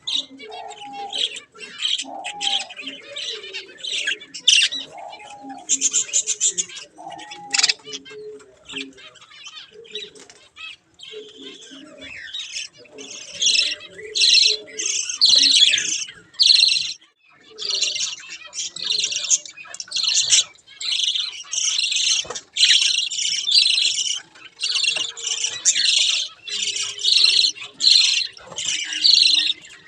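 A flock of budgerigars chattering and warbling in many short, rapid calls, growing busier from about thirteen seconds in. During the first eight seconds a lower, rising-and-falling call repeats about every second and a half.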